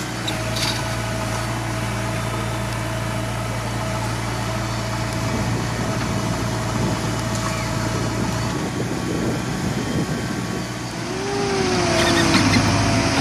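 Heavy diesel engines of a backhoe loader and a tipper truck running steadily at a loading pit. Near the end the sound turns louder and rougher as a loaded tipper truck drives over dirt ground.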